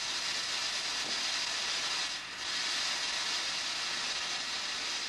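A steady hiss, like air or steam escaping, with a brief dip about two seconds in.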